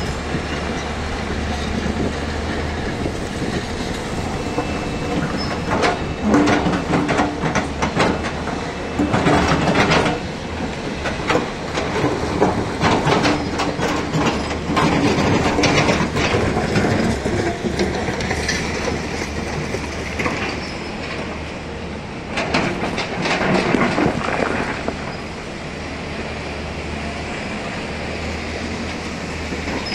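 Hyundai crawler excavator's diesel engine running steadily, with bursts of clattering and knocking as the machine works loose rock and stone, loudest in two stretches through the middle.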